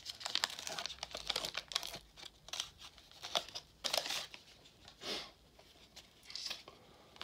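A 1991 Upper Deck baseball card pack's wrapper being torn open and crinkled by hand: a run of short, irregular crackling rips.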